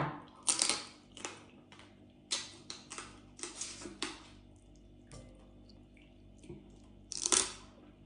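Cooked seafood shells cracking and being pulled apart by hand, with short crunchy bursts and the mouth sounds of eating. The clearest crack comes about half a second in, another cluster follows in the middle, and a last one comes near the end.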